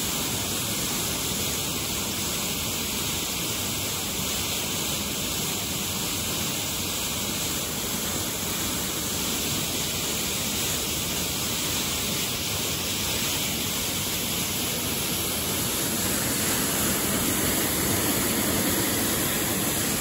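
Steady rush of water pouring out of a dam's discharge outlet into the river pool below, a little louder near the end.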